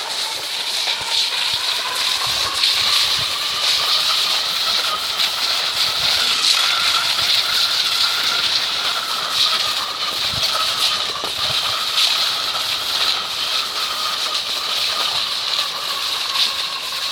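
Skis hissing steadily over snow, with a faint wavering whistle of wind above it and a few soft low thumps.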